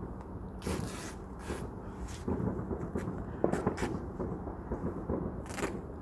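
Irregular scuffs, rustles and light knocks close to the microphone, with one sharper knock about three and a half seconds in.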